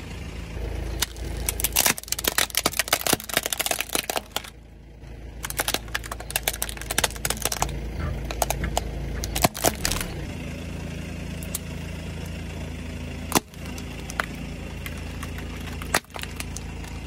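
A Mercedes-Benz car tyre rolling over and crushing objects: runs of sharp cracks and snaps as pomegranates and then a plastic toy car break under the wheel, over the car's steady low engine hum.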